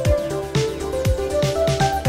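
Electronic background music with a steady kick-drum beat about once a second and a synth melody.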